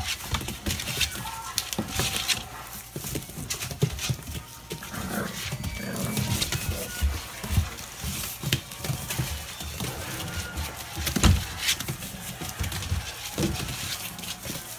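Seven-week-old American Bulldog puppies play-fighting and scuffling in wood shavings, with short yaps and growls among frequent knocks and scrapes.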